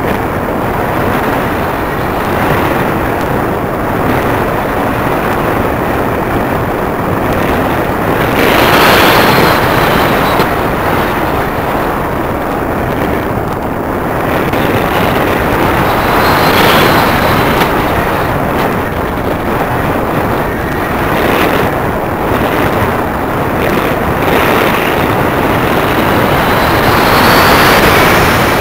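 Airflow rushing over the onboard camera's microphone on a Multiplex EasyStar model plane in flight, a loud steady rush that swells louder three times, with a faint high whine showing during the swells.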